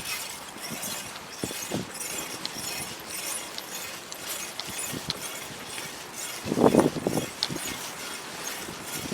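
Bicycle tyres rolling over a path strewn with broken bottle glass and grit, with a steady crackle of small ticks and one louder bump about two-thirds of the way in.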